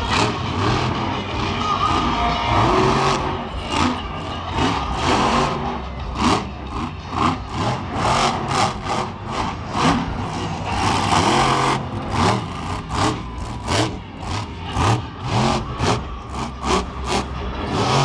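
Monster truck's supercharged V8 engine revving hard in quick repeated bursts of throttle, with a couple of longer sustained pulls.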